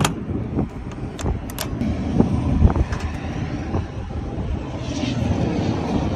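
Low steady rumble of aircraft noise, with several sharp knocks and clicks in the first few seconds.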